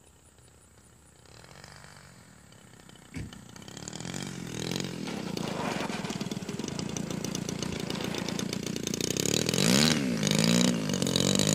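Radio-controlled model airplane's engine running as the plane moves along the runway, growing louder from about four seconds in. There is a sharp knock about three seconds in, and near the end the engine's pitch dips and rises twice.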